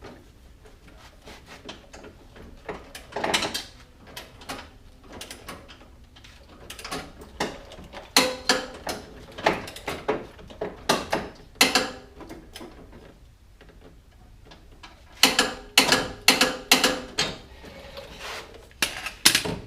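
Hand ratchet wrench clicking in short runs of strokes as the upper control arm nut is tightened toward its 87 ft-lb torque spec.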